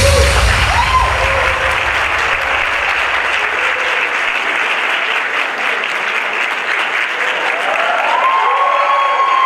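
Large audience applauding steadily, with a few whoops rising and falling over the clapping about a second in and again near the end.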